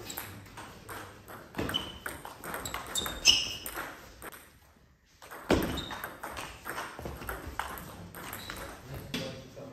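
Table tennis rally: the ball clicking off the bats and bouncing on the table, each hit a sharp tick with a short ringing ping. The hits come in quick runs, with a brief pause about halfway between points.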